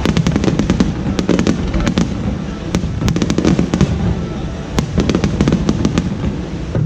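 Aerial fireworks going off in quick succession: a dense crackle of sharp pops over deep booming bursts.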